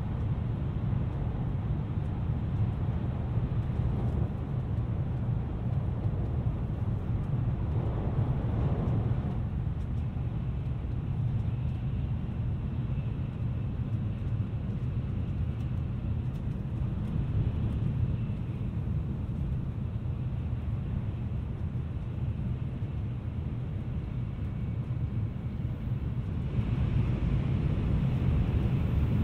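Tokaido Shinkansen train running, heard inside the passenger cabin: a steady low rumble of wheels on rail with air noise over it. It swells briefly about eight seconds in and grows louder and brighter near the end.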